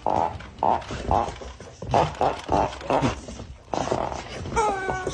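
Rubber chicken squeeze toy squawking, squeezed over and over in short, buzzy honks while a dog jumps at it, then giving longer squeals that fall in pitch near the end.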